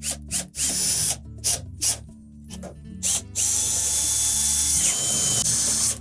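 Cordless drill/driver driving screws into a dishwasher door panel: several short trigger bursts, then a steady run of about two and a half seconds from about halfway through.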